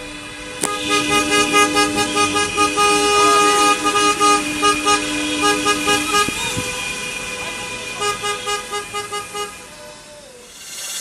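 Several car horns at different pitches honking together, some held for seconds and others tooting in quick repeated bursts, dying away near the end.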